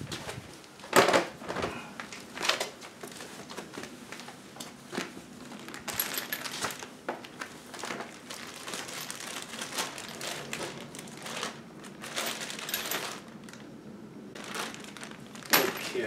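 Handling noises: a plastic folding step stool clacks as it is opened and set down about a second in, then a plastic bag of small parts crinkles and rustles, with light clicks of the items inside.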